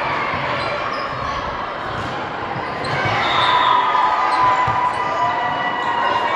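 Volleyball play in a gym: the ball struck and bouncing, over spectators' chatter, with voices calling out louder from about halfway through.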